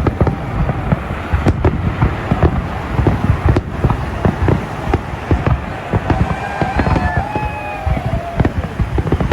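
Fireworks display: a rapid, continuous barrage of bangs and crackles with a deep rumble, and a few short whistling tones around seven seconds in.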